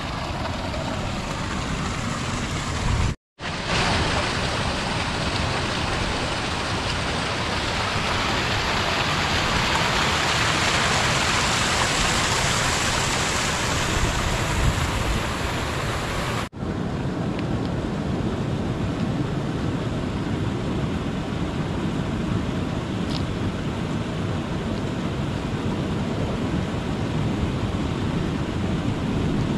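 Ocean surf washing on the beach with wind on the microphone: a steady rushing noise, broken by two sudden brief cuts, about three seconds in and again past the middle.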